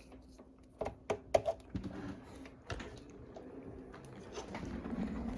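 Clicks and rattles of a power cord being handled and plugged into a desktop computer, a few sharp clicks in the first three seconds, then a low rustling noise that builds near the end.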